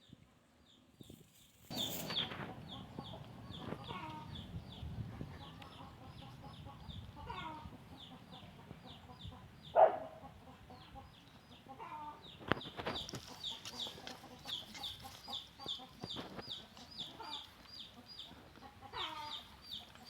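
Chickens clucking, over a string of short high peeps repeating about three times a second. A loud sharp sound just before the middle stands above the rest.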